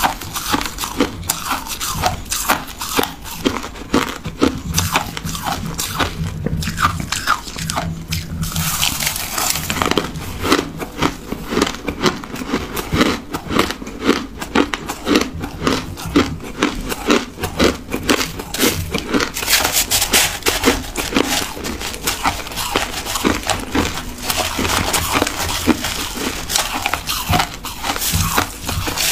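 Crushed ice being bitten and chewed: a dense, continuous run of crisp crunches, with a metal spoon scooping through a tub of crushed ice.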